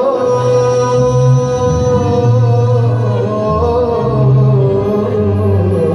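Moroccan orchestra playing live, with a male singer holding long, gently bending notes over the band and a bass line that moves note to note about once a second.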